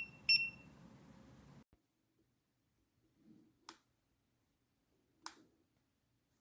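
Kiprim gas leak detector's audible alarm beeping, short high-pitched beeps about two a second, the last about half a second in, then stopping. Two sharp clicks follow, about a second and a half apart.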